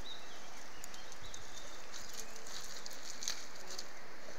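Steady rushing of flowing river water, with scattered light clicks of steps on loose river pebbles.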